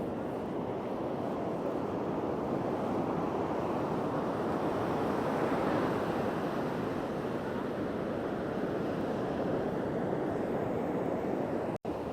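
Steady wash of ocean surf breaking on the beach, swelling a little louder about halfway through. The sound cuts out for an instant near the end.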